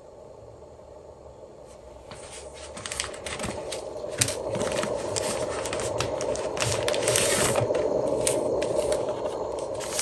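Inner packaging being drawn out of a cardboard retail box by hand: dry scraping and rustling of paperboard against paperboard, with light clicks and crinkles. It starts about two seconds in and is loudest near the end, over a faint steady room hum.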